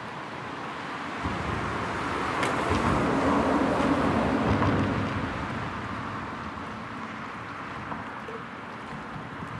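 A vehicle passing by: its rumble swells from about a second in, peaks in the middle and fades again, over a steady rushing background.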